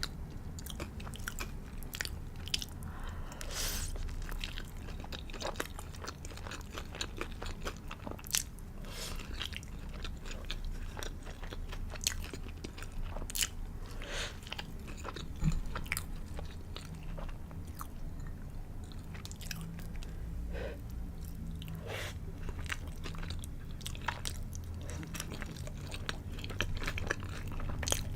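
A person biting into and chewing a crispy fried chicken burger close to the microphone, with crunchy crackles from the breaded coating between quieter chewing.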